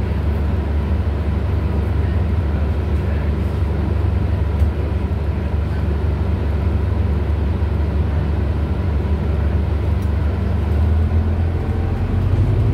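The Cummins ISL9 inline-six diesel of a New Flyer XDE40 hybrid bus idles with a steady low hum, heard from inside the passenger cabin. Near the end the pitch rises as the bus pulls away.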